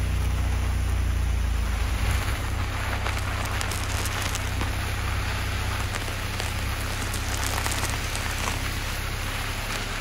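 Car tyres rolling slowly over dirt and gravel: a steady crunching hiss peppered with small ticks of stones, over a low rumble that drops away about two seconds in.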